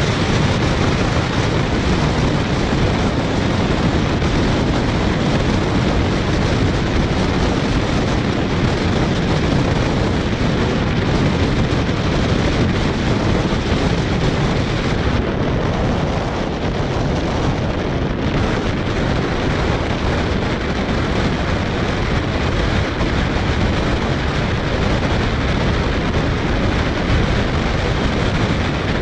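Wind rushing over a microphone held out of the window of a moving passenger train, over the train's steady rumble as it runs along the track.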